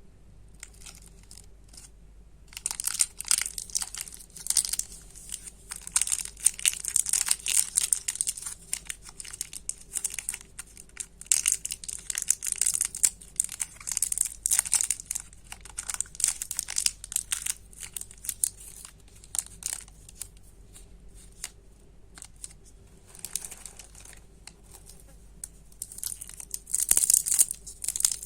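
Candy wrappers being torn open and crinkled by hand, in dense crackly bursts that pause briefly about three-quarters of the way through and then resume.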